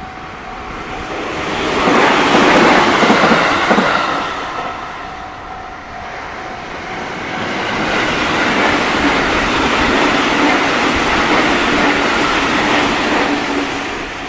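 Trains running past a railway level crossing: the rail noise swells to a loud peak about two to three seconds in and dies away, then swells again from about eight seconds and stays loud until near the end. A faint, repeating crossing warning bell can be heard in the quieter gaps.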